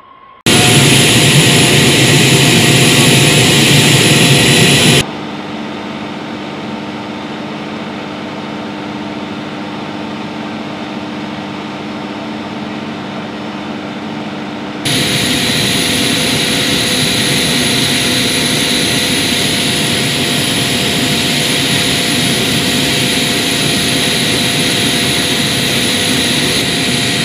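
Flight-line jet engine noise in three sections split by abrupt cuts: very loud jet engine noise with whining tones at first, then about five seconds in a quieter steady machinery hum with low droning tones, then from about fifteen seconds in a steady jet rush and high whine.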